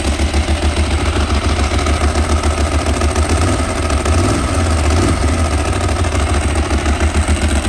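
Ducati 1198S's 1198 cc L-twin engine idling through an Akrapovic exhaust, with a steady pulsing beat.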